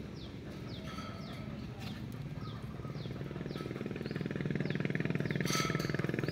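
Small birds chirping over and over with short falling notes, while a low engine hum underneath grows louder in the second half. A brief hiss comes about five and a half seconds in.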